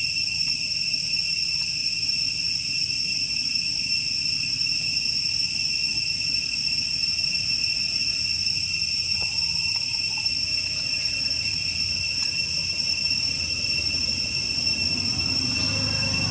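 Steady, unbroken high-pitched insect chorus, with a low rumble underneath that grows near the end.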